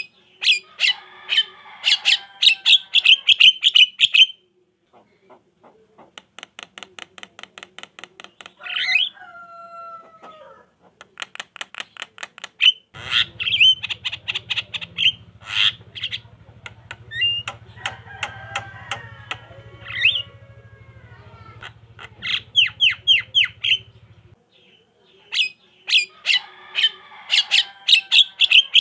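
Javan myna chattering: bursts of fast, harsh clicking notes mixed with squeaky calls and whistles that glide in pitch, repeating every few seconds. A faint low hum runs under the middle part.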